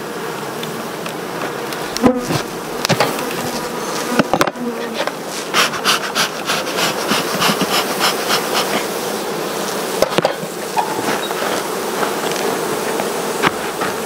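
An Africanized honeybee colony buzzing loudly as its hive is opened, the hum slowly growing louder. A few sharp wooden knocks and cracks come through it as the hive tool pries at the lid.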